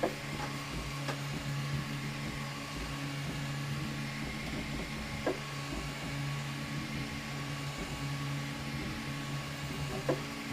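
Ultimaker 2 3D printer running a print: a steady hum of its motors and fans, with a few short clicks.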